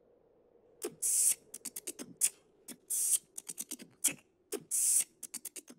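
A percussive rhythm of sharp clicks and short knocks, with three longer hissing bursts about two seconds apart, starting about a second in.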